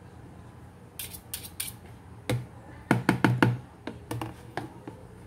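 Wire whisk and spoon knocking and clattering against the sides of a plastic Tupperware tub while thick pancake batter is stirred: a series of irregular sharp knocks, several in quick succession about three seconds in.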